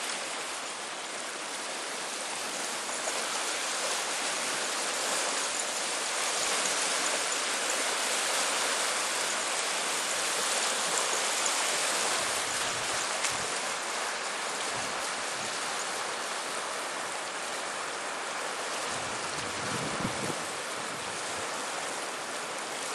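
A set of small waves washing onto a pebbly, rocky river shore: a steady rush of breaking water that swells for several seconds and then eases off.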